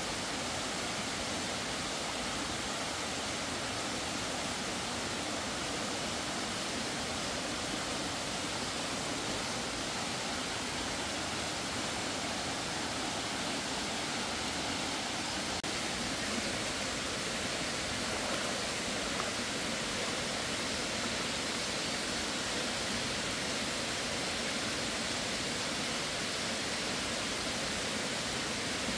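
Steady rush of flowing stream water, an even hiss with no break.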